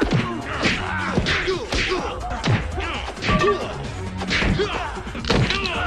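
Fight-scene sound effects from an action film: a quick series of punch and kick whacks, about one or two a second, over background action music.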